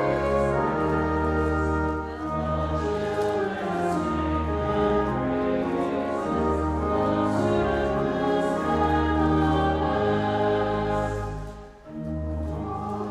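Church choir or congregation singing a hymn with instrumental accompaniment, in sustained phrases over a moving bass line, with a short break between phrases near the end.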